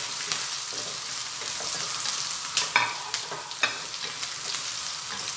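Onion, garlic, ginger and chili sizzling steadily in hot oil in a wok as a spatula stirs them, with a few sharp knocks of the spatula against the pan about three seconds in.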